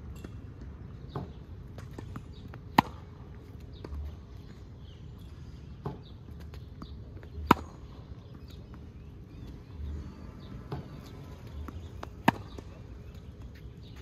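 Sharp strikes repeating about every five seconds: three loud cracks, each coming about a second and a half after a softer knock.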